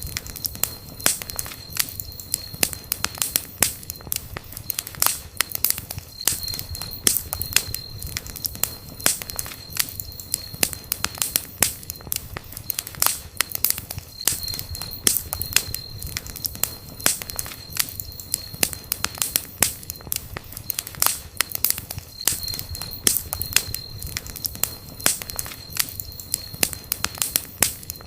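Wood campfire burning and crackling, with constant irregular sharp pops and snaps over a low, steady rumble of the flames. A faint thin high tone comes and goes every several seconds.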